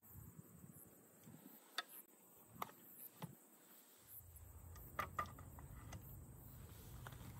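Faint sharp metallic clicks of an 8 bore rifle's action being handled while a large brass cartridge is loaded, a few spread out and two close together about five seconds in. A faint steady high insect-like hum sits underneath, with a low rumble joining about four seconds in.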